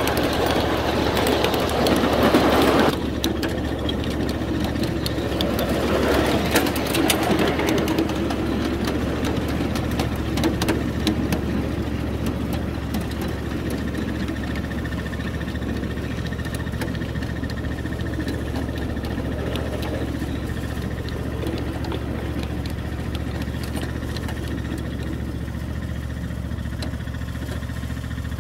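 Ride-on 7.5-inch gauge diesel-outline locomotive's engine running steadily. For the first three seconds, louder rolling noise from the train on the rails covers it, then cuts off suddenly, leaving the engine idling.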